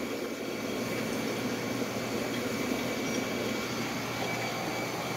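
Steady rush of aquarium water circulating, with pumps and filtration running, a low hum and a faint steady high whine.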